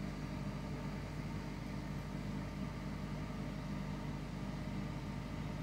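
Panda portable spin dryer running at full spin speed, about 3,200 rpm, with a load of wet laundry: a steady motor and drum hum that does not change.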